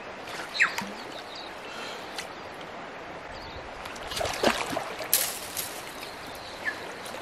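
River water running steadily over a shallow stony bed, with a few sharp splashes and knocks about four to five seconds in.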